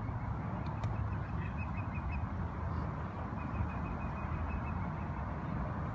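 Open-air ballpark ambience: a low steady rumble with two runs of quick, evenly spaced high chirps, and a single sharp click just under a second in.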